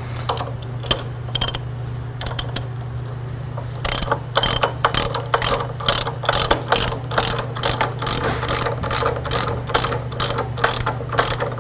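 Socket ratchet clicking as it drives a lag screw through a bench vise's base into a wooden bench: a few scattered clicks, then from about four seconds in a quick, even run of clicks, about three a second, over a steady low hum.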